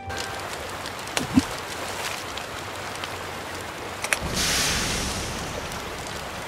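Water sound effects for a sinking boat: a steady wash of sea water, with a sharp knock about a second and a half in and a louder rush of water just after four seconds.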